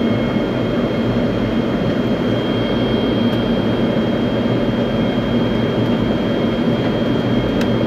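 Steady engine and airflow noise inside an airliner's cabin in flight, with a thin, steady high-pitched tone above it.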